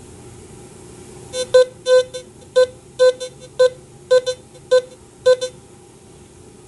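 A Teknetics T2+ metal detector beeps in short, repeated tones, about ten in four seconds, as a silver coin is swept over its search coil. The beeps are its target response to a high-conductivity silver coin, which the detector reads at a target ID in the low 70s.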